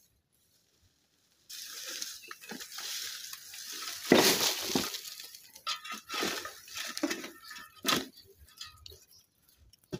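Dry twigs and branches rustling and crackling as a brush pile is forked up and moved with a long-handled tool, with short scrapes and clicks. It starts about a second and a half in and is loudest about four seconds in, when a large forkful is lifted.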